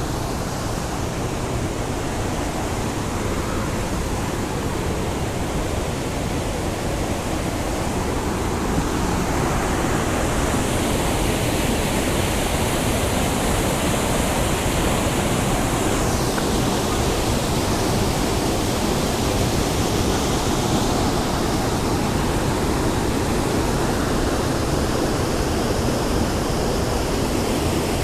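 Waterfall rushing, a steady loud wash of noise that gets slightly louder about ten seconds in.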